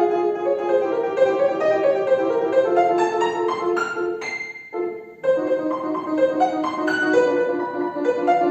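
Solo piano playing a fast toccata of quick, evenly repeated notes, with a short pause about halfway through before the running notes resume.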